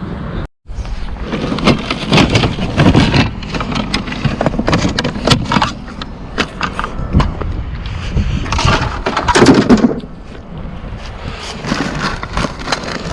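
Irregular clattering, knocking and scraping of hard objects being handled, with rustling between the knocks.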